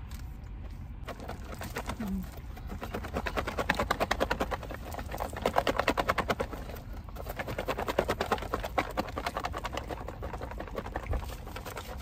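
Salad shaken inside a closed clear plastic clamshell container, rattling fast, several strokes a second, in a few hard bursts.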